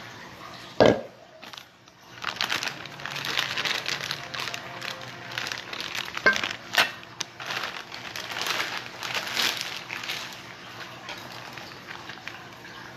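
Clear plastic piping bag crinkling and rustling as it is handled and squeezed, a dense crackly rustle lasting several seconds, with a single thump about a second in.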